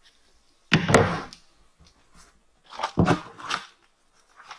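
Two sudden thunks, about a second in and about three seconds in, with scraping and crunching of dry dirt, as a long level is set across the rim of a black plastic septic tank and a man kneels at the hole's edge.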